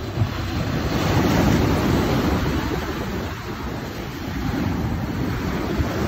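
Ocean surf breaking and washing around a rock breakwater: a steady rush of churning water that swells about a second in, eases, and builds again near the end.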